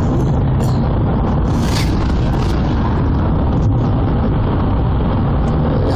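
Steady rumble of a car at highway speed, heard from inside the cabin, with a brief hiss just under two seconds in.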